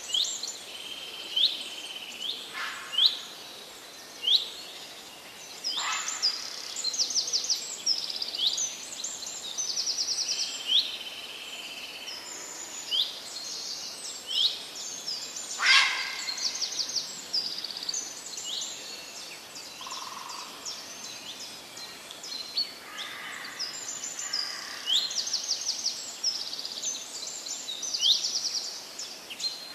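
Birdsong: several small birds chirping and trilling, with short rising calls and quick rattling trills, over a soft steady background hiss.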